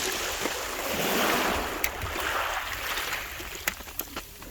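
Sea wave surging in over the stones at the water's edge: a rush of water that builds about a second in and then fades, with a few sharp clicks near the end.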